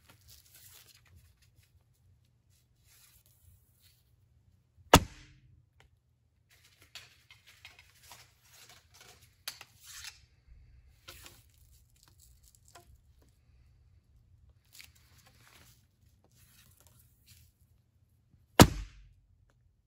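A wooden hand-drawn bow shot twice, about fourteen seconds apart: each a single sharp snap of the released string sending the arrow off. Between the shots come faint scattered rustles and clicks.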